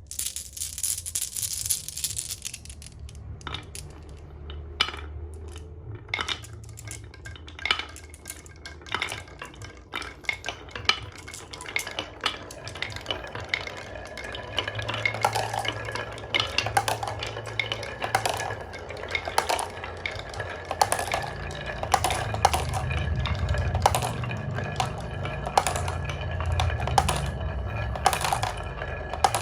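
Marbles rolling down a wooden HABA marble run, clattering with many sharp clicks as they strike the track and each other over a continuous rolling rumble.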